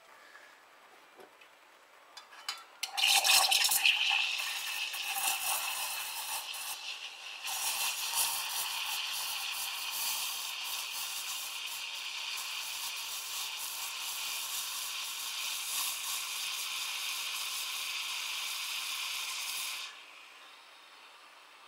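Gaggia Classic's steam wand steaming milk in a stainless steel jug: a loud hiss starts about three seconds in, uneven for the first few seconds, then settles into a steady hiss and cuts off sharply near the end as the steam is shut off.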